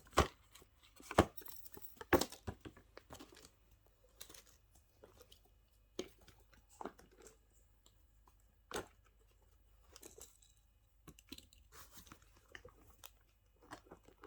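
Small fidget toys being handled: irregular sharp plastic clicks and knocks, loudest three times in the first two seconds, then lighter scattered clicks and rustling.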